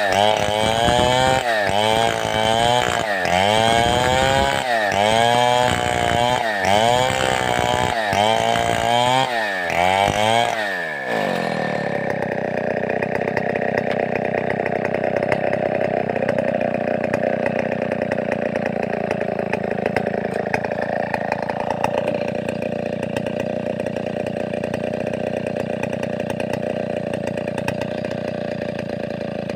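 Large two-stroke chainsaw of the Stihl 070 type, its throttle pumped in a steady rhythm so the engine revs up and falls back about every second and a half, some eight times. About eleven seconds in the pumping stops and the saw runs on at a steady pitch.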